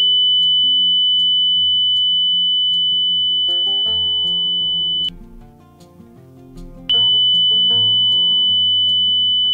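Sunshine DT-9205E digital multimeter's continuity buzzer sounding a steady high-pitched beep, cutting out about five seconds in and coming back about two seconds later, over quieter background music. The beep shows continuity: there is no broken connection between the battery terminal and the backlight IC.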